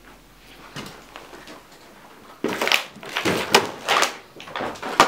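Footsteps crunching and scraping over burnt debris and plaster rubble, an uneven run of steps starting about halfway through, with a sharp knock near the end.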